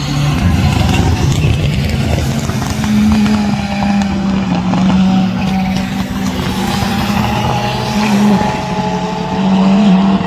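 Rally cars passing on a wet track, engines running at high revs with a strong, fairly steady engine note, over a hiss of tyres on wet tarmac.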